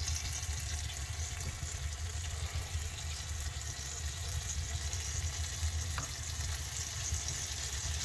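Offset smoker sizzling and crackling steadily over a steady low rumble.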